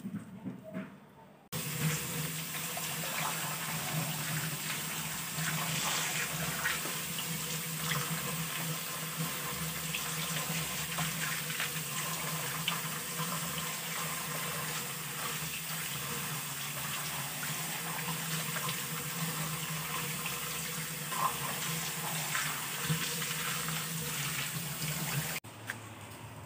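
Water gushing from a hose onto a rubber clog and tiled floor, rinsing the slipper clean. A steady rush that starts abruptly about a second and a half in and cuts off about a second before the end.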